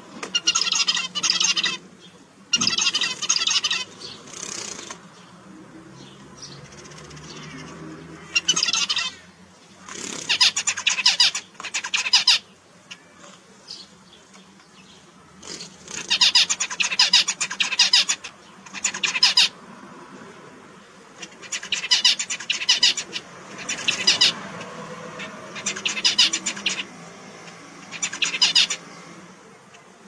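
Male zebra finches singing in a cage: bursts of quick, high song a second or two long, repeated over and over with short pauses between.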